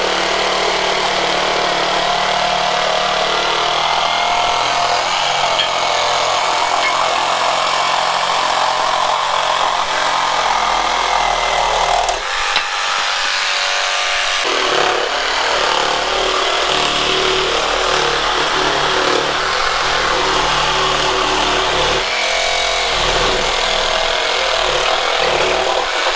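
Flex cordless jigsaw with a multi-purpose blade cutting through a yellow pine board, the motor and reciprocating blade running steadily under load, with a brief dip about halfway through.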